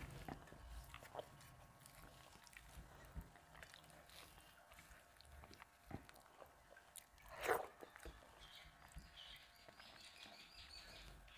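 Faint close-up eating sounds: fingers mixing rice with dal on a metal plate, giving small wet squelches and clicks, with soft chewing. One louder short wet smack about seven and a half seconds in.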